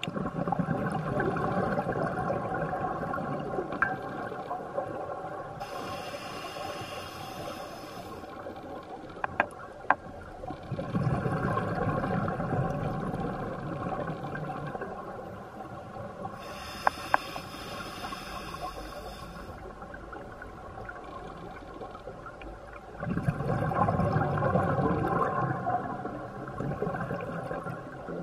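Open-circuit scuba regulator breathing underwater: three slow breaths, each a swelling rush of exhaled bubbles and a hiss of the regulator, with a few sharp clicks of dive gear.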